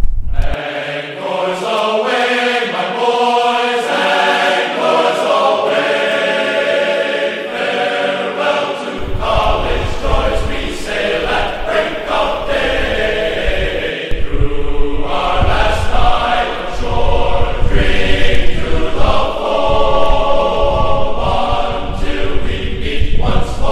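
Choral music: a choir of voices singing slow, held chant-like chords. A low rumble joins beneath it about nine seconds in.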